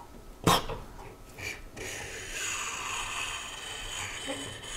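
A sharp knock about half a second in, a few light ticks, then a steady scraping hiss as the cast wormcase half of a Yamaha YT624EJ snowblower slides along the auger drive shaft toward its mating half.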